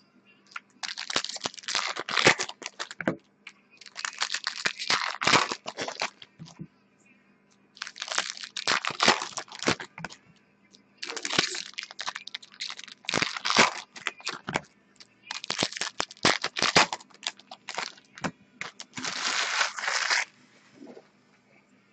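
Trading-card packaging being torn open and crinkled by hand, in about eight crinkly bursts of a second or two each with short pauses between.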